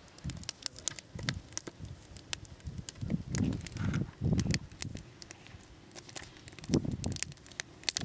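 Wood fire crackling, with frequent sharp pops and snaps. A few dull low thuds come in the middle and one more near the end.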